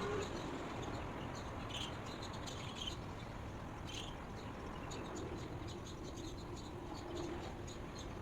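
Small birds chirping: many short, high chirps repeating over a steady background hiss, with a few louder chirps about two, three and four seconds in.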